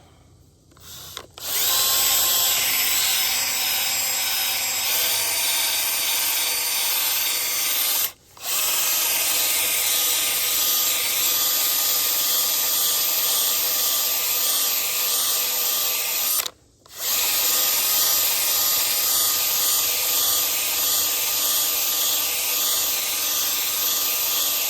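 Drill spinning a Velcro grinding pad against the edge of a wheel rim, grinding off curb rash: a steady motor whine with a sanding hiss. It starts about a second in, picks up speed over the first few seconds, and stops briefly twice before running on.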